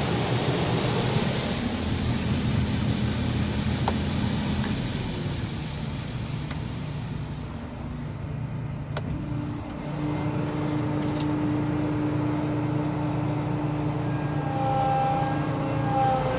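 Farm vehicle engine running steadily. About ten seconds in its note changes to a steadier, higher hum.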